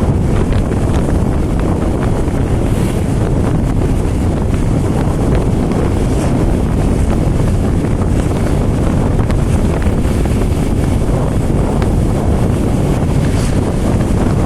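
Steady wind rumble buffeting the microphone of a camera riding on a moving road vehicle, with the low drone of travel underneath and no break or change.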